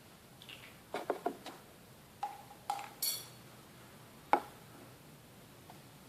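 Glue bottle and mixing container being handled: a quick run of light clicks and knocks about a second in, short ringing clinks, and one sharper knock a little after four seconds.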